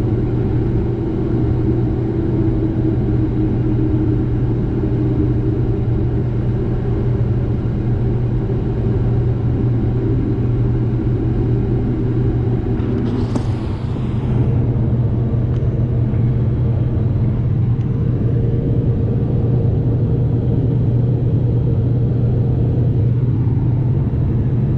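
7088 combine running steadily, a continuous low machine drone. A brief hiss is heard about halfway through.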